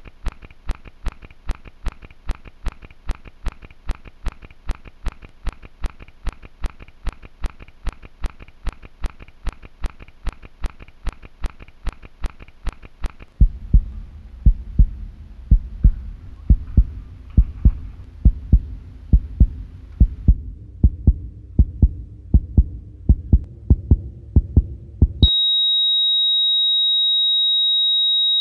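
Heartbeat sound effect, about two beats a second, turning louder and deeper about halfway through. Near the end it cuts off into a continuous high heart-monitor flatline tone, the sign of the heart stopping.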